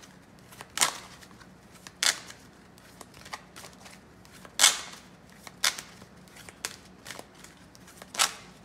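A deck of cards being shuffled and handled: sharp card snaps roughly once a second, with lighter ticks and rustles between.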